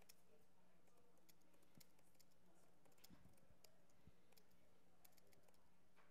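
Faint laptop keyboard typing: scattered, irregular keystroke clicks over a low steady hum.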